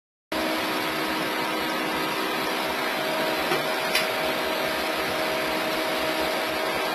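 Homemade laser cutter running idle before cutting: a steady blowing hum from its fans and air, with a few steady tones in it. A single click about four seconds in.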